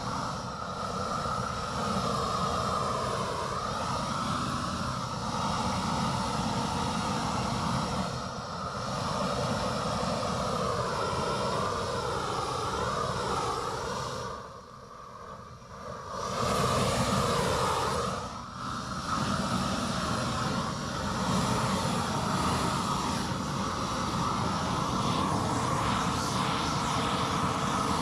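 A small motor running with a steady whine that wavers in pitch; it eases off briefly about halfway through, then comes back louder.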